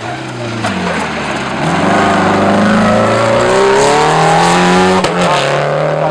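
A rally car's engine at full throttle, climbing in pitch as it accelerates hard, with a gear change about five seconds in.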